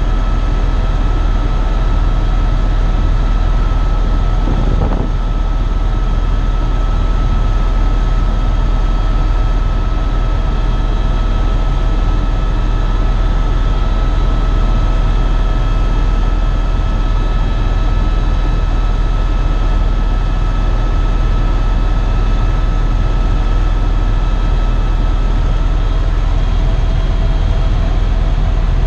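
Eurocopter EcoStar helicopter heard from inside the cabin: a steady, loud drone of rotor and single turboshaft engine, with a few constant whining tones over a heavy low rumble.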